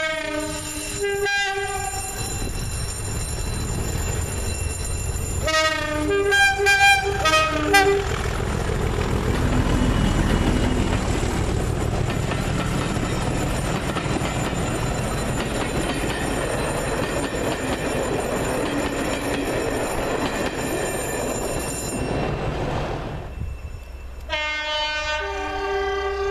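Class 37 diesel locomotive sounds its two-tone horn at the start and again, in several short blasts, about six seconds in, then passes close by with its engine running under load and the coaches' wheels rumbling and clattering for about fourteen seconds. After a cut near the end, another diesel locomotive's horn sounds, held.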